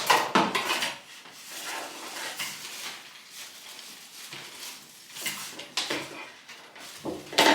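Metal hanger clinking and rattling in a series of sharp, irregular knocks while a table runner is worked off it, loudest at the start and again near the end.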